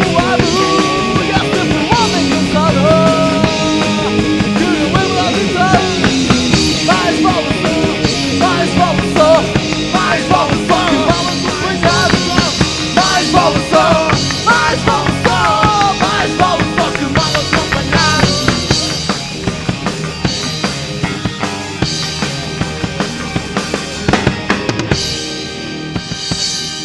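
Rock band playing live on electric guitars, bass guitar and drum kit, with a wavering high melody line over the beat. The music gets quieter over the last few seconds as the song comes to its end.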